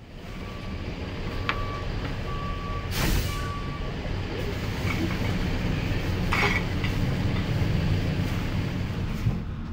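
A large vehicle's engine running in a steady low rumble, with a reversing alarm beeping at one pitch four times in the first four seconds and a loud short burst of noise about three seconds in.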